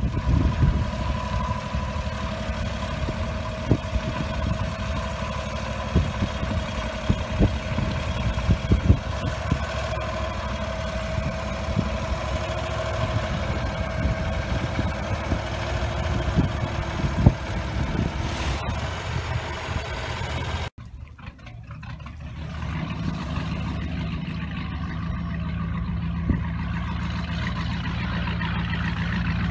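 Inboard engine of a 1941 wooden Chris-Craft runabout running slowly offshore, with gusts of wind buffeting the microphone. About two-thirds through the sound cuts off abruptly. After the cut the engine hum is steadier and slowly grows louder.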